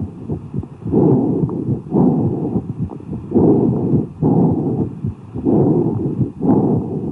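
Amorphous breath sounds heard through a stethoscope over a cavity in the lung: about six breath phases of rushing noise, roughly one a second, with inspiration and expiration equal in length, expiration lower in pitch, and a short pause between them. Heart tones are audible beneath the breathing.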